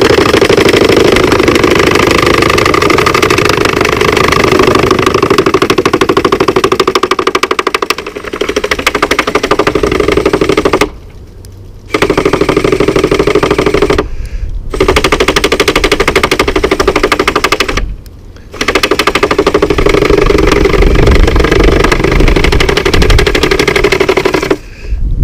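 iRobot Looj 330 gutter-cleaning robot running in a rain gutter, its drive motor and spinning auger making a steady, rattly mechanical whir. It cuts out briefly three times in the second half as it is stopped and restarted by remote.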